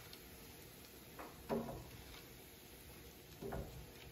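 Metal tongs knocking and scraping against a cast iron skillet, two clinks close together about a second and a half in and another near the end, over a faint steady hiss of frying oil.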